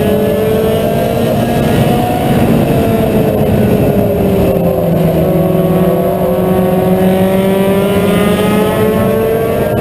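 Mini stock race car engine running hard and steady, its pitch sagging through the middle and climbing again near the end.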